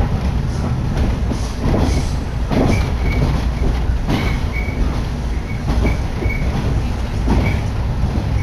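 Electric train running along the line, heard from inside the carriage beside an open window: a steady low rumble with wheel clatter, and short high squeals from the wheels coming several times from about three seconds in.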